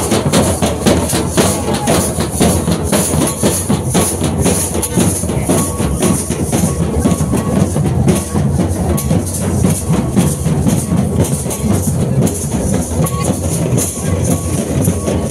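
A group of large shoulder-slung drums beaten with sticks in a fast, dense, unbroken rhythm.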